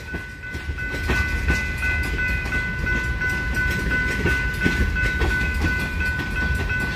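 Freight train of tank cars passing fast over a grade crossing: a steady low rumble with scattered wheel clicks over the rail joints. The crossing's mechanical bell rings steadily over it.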